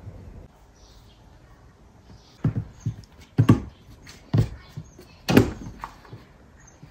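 A Norwegian Forest Cat kitten leaping at a pompom toy dangling on a string and landing on a wooden floor: four thumps about a second apart, starting a couple of seconds in.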